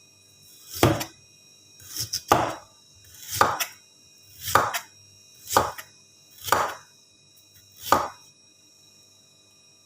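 A kitchen knife chopping on a cutting board: about seven separate chops, roughly one a second, stopping about eight seconds in.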